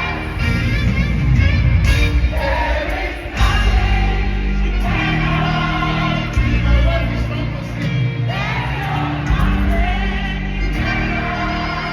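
Live worship music: singers over a band with a heavy bass line.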